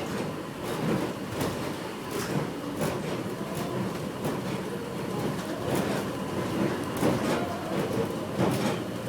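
Airport inter-terminal people-mover train running, heard from inside the car: a steady rumble with scattered clicks and knocks.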